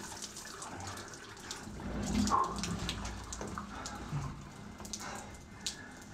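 Water dripping and splashing in a shower in scattered light ticks, with a couple of short low sounds about two and four seconds in.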